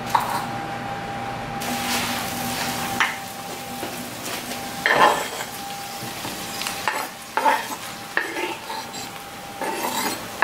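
Food sizzling steadily in cookware on a gas stove while diced tomatoes are scraped off a wooden cutting board into the pot with a knife, giving several short knocks and scrapes, the loudest about halfway through.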